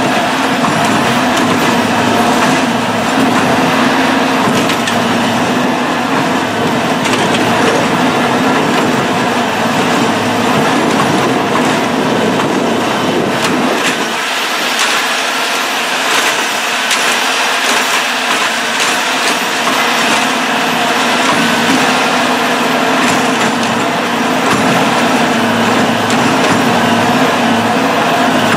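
Diesel engine and hydraulics of a rail-mounted tie replacement machine running steadily, with knocks and the crunch and crack of wooden railroad ties being worked out from under the rail. The deep engine rumble eases for several seconds about halfway through.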